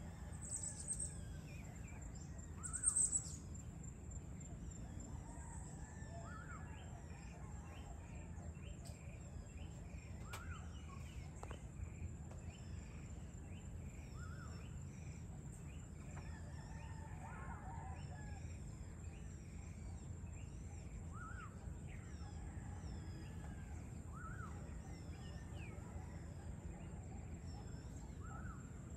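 Birds chirping and calling, with many small high chirps, a short call repeated every few seconds, and two louder high bursts near the start. Beneath them run a steady low rumble and a steady high-pitched whine.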